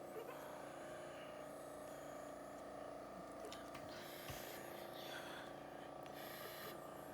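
A child breathing with stridor: a faint, harsh rasp on each breath, a breath every second or two, the sign of a narrowed upper airway. A steady low hum runs underneath.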